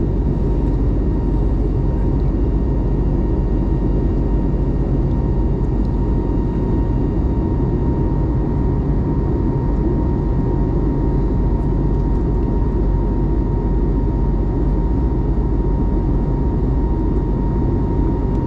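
Airbus A321neo cabin noise as heard from a passenger seat: a steady, loud rumble of engines and airflow with a thin, steady whine on top.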